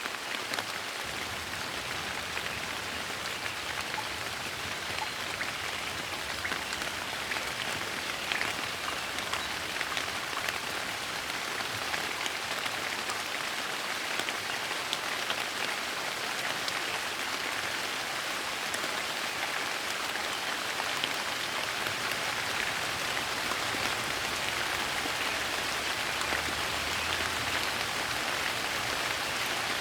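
Steady light rain falling on a surface, a constant patter with many small drop ticks.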